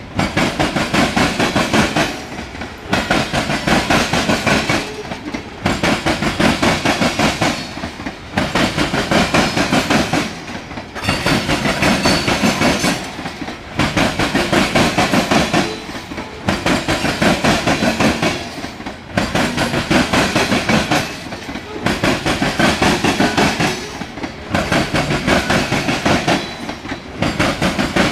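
Freight cars of a passing Norfolk Southern mixed freight train rolling by close up: covered hoppers and tank cars on steel wheels, clattering on the rails. The clatter swells and dips about every two and a half to three seconds as each car goes past.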